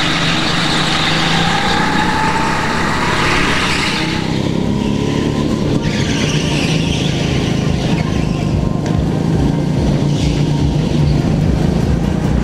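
Go-kart engines running at racing speed, heard from on board a kart: a steady engine drone with tyre and rushing noise. The sound changes character about four seconds in.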